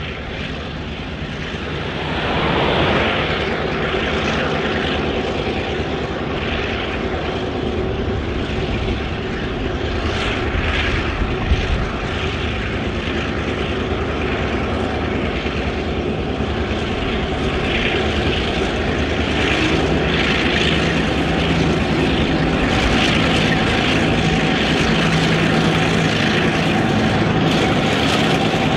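Narrow-gauge iron ore train hauled by a Clyde/GM CK-class diesel-electric locomotive and a DE-class diesel-electric locomotive, approaching with a steady engine drone over the rumble of the train. It grows louder in the first few seconds, then builds slowly as the locomotives draw close.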